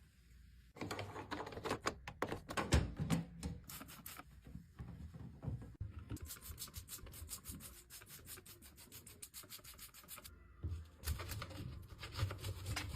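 Scrubbing a washing machine clean, a run of quick rubbing strokes against its surfaces that pauses briefly a few seconds before the end.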